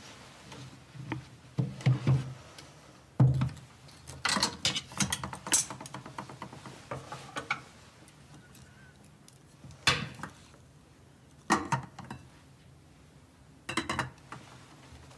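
Cutlery and dishes clinking and knocking on a table in scattered bursts, with a busy run of clinks in the middle and a few single knocks near the end.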